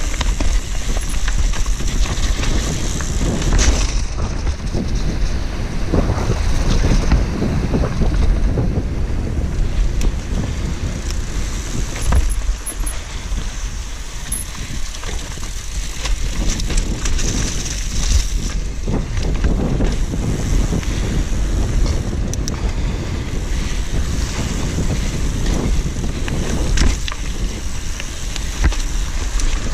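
Mountain bike riding downhill on a dry dirt trail: wind buffeting the microphone and tyre rumble, with frequent sharp rattles and knocks from the bike over bumps.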